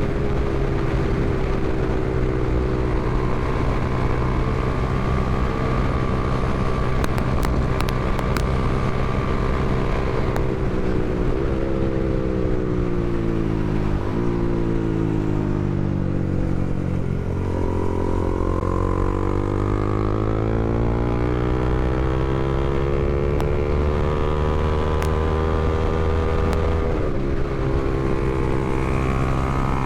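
Honda CBR300R's single-cylinder engine running steadily, then dropping in pitch for a few seconds. It then climbs slowly in pitch for about ten seconds before levelling off again near the end.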